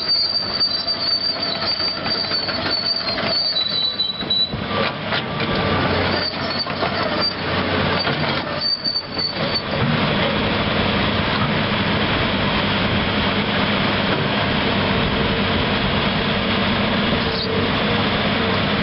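Caterpillar 330CL excavator running, with high metallic squeals from its steel tracks and undercarriage over roughly the first half. After that comes a steadier mechanical run with a low hum from its C9 diesel.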